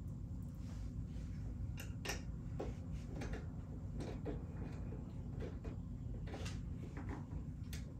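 Scattered light clicks and knocks of a projector being worked loose from its ceiling mount by hand, over a steady low hum.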